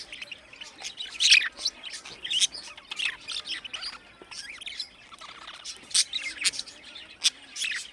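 A flock of budgerigars chirping and chattering, many short overlapping calls with occasional louder squawks.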